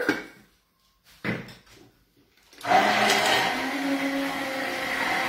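Hand-held immersion (stick) blender switching on nearly three seconds in and running steadily in a mug, whipping egg and olive oil into mayonnaise.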